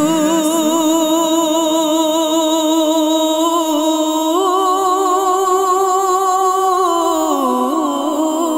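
Wordless a cappella vocal introduction to an Islamic song: male voices hold long sung notes with vibrato, stepping up in pitch about four seconds in and sliding down near the end.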